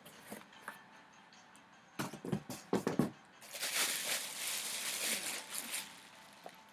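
Plastic bag around a pair of boots crinkling as it is handled and lifted out of the shoebox. A few short knocks and rustles about two seconds in lead into a couple of seconds of dense crinkling, which then fades.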